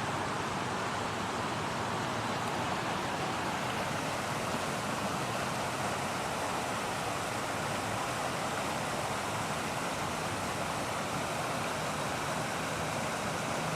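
Floodwater of a swollen creek rushing steadily, an even noise with no distinct splashes.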